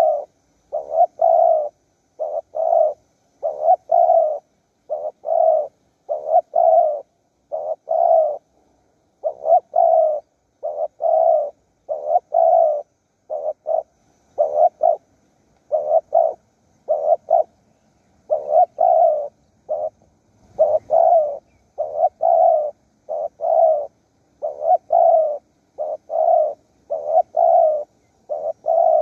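Spotted dove cooing over and over: short, low, hollow notes in quick groups of two or three, repeating steadily with brief gaps.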